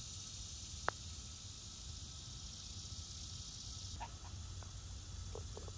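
A single sharp click of a putter striking a golf ball about a second in, over a steady high insect drone that drops away a little before four seconds in. A few faint short ticks follow near the end.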